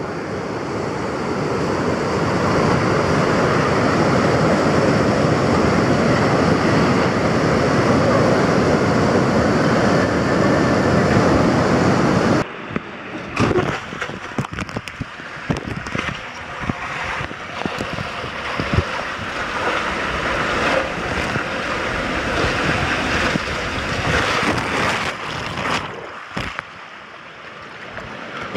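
Water mushroom fountain pouring its dome of water into the pool: a steady, loud rushing. About twelve seconds in it cuts off sharply to choppy, irregular splashing and sloshing of water around the camera, which goes under the surface near the end.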